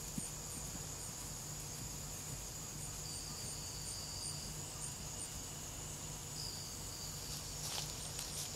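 Evening insect chorus: a steady high-pitched trill, with a second insect chirping two or three times a second above it, over a low hum. A couple of faint thuds come near the end.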